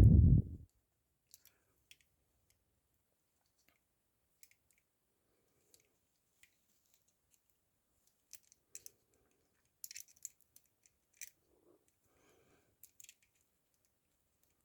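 Faint, scattered metallic clicks and ticks of a straightened paper clip being worked in the keyhole of rigid steel handcuffs, coming in small quick clusters in the second half.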